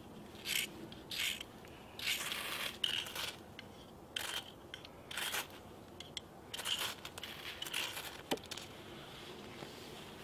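Steel knife blades shaving dry wood into fine curls: a series of short scraping strokes, irregularly spaced at about one a second. A single sharp knock comes a little after eight seconds.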